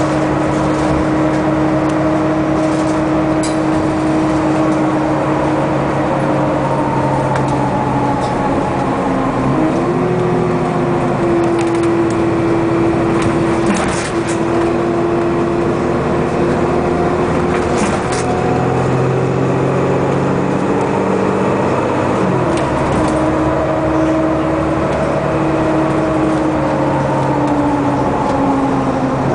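Inside a moving city bus: the engine and drivetrain drone steadily over road noise, their pitch rising and falling a couple of times as the speed changes. A few short sharp clicks come near the middle.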